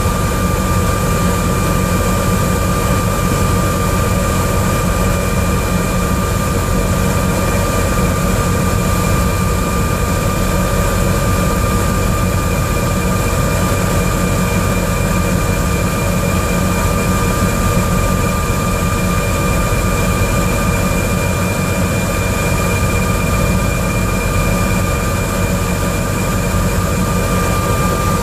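Medical helicopter's turbine engine and rotor running steadily, heard from inside the cabin: a constant low rumble under a steady high whine.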